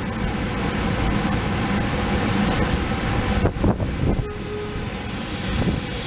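SEPTA Silverliner electric multiple-unit commuter train running past, a steady rumble of wheels on rails, with a few sharp knocks about three and a half to four seconds in.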